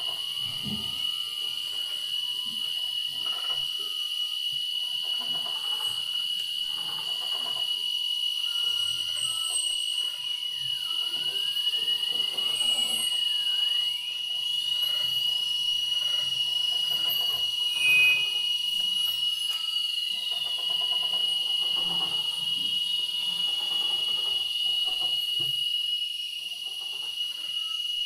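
Electroacoustic noise improvisation on a prepared electric guitar and homemade electronic devices: a steady high-pitched tone held throughout over irregular crackles and clicks, with slow pitch glides sweeping up and down through the middle and a short louder beep about eighteen seconds in.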